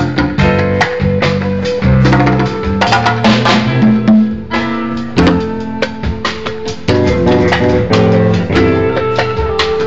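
A band playing live: a drum kit keeps a steady beat under sustained guitar and low pitched notes.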